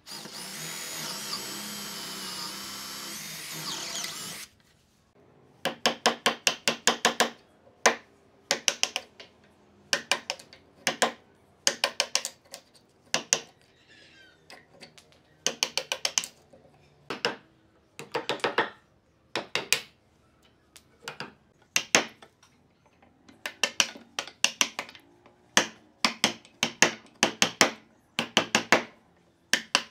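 Electric drill boring into a thick softwood block with a long twist bit, stopping about four seconds in. Then a wood chisel is struck again and again in quick bursts of several sharp, ringing blows, chopping waste out from between saw kerfs.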